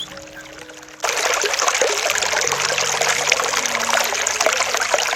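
Running water trickling and splashing, starting abruptly about a second in.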